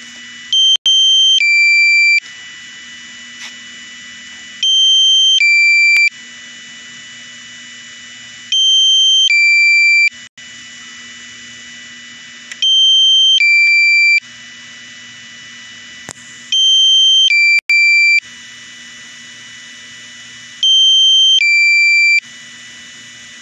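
Drone flight app's low-battery alarm: a loud two-tone beeping lasting about a second and a half, repeating about every four seconds, with a steady quieter hiss and low hum between the beeps.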